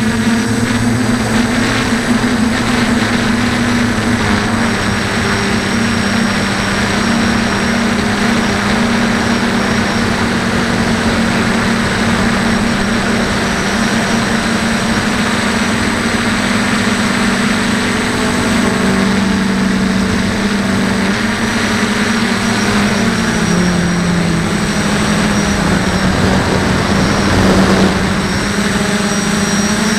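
DJI F450 quadcopter's motors and propellers droning steadily, heard from the camera mounted on the craft itself. The pitch shifts a little a few times as it flies, most clearly about three-quarters of the way through.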